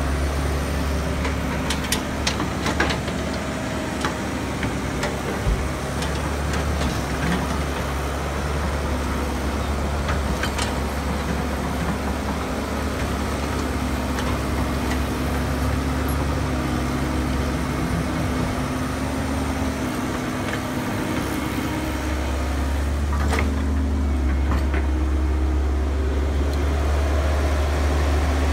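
Caterpillar crawler excavator's diesel engine running steadily as it digs, a deep continuous hum, with a few sharp knocks in between.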